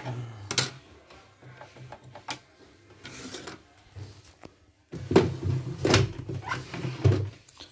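Hard plastic parts of a CNY portable embroidery machine being handled and fitted together: scattered clicks and knocks of the plastic casing and embroidery unit against each other and the table, busier in the second half.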